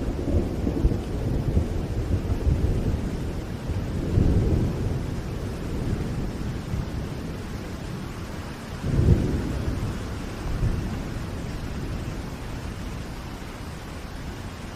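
Steady rain with low rolling thunder, swelling about four seconds in and again more strongly about nine seconds in.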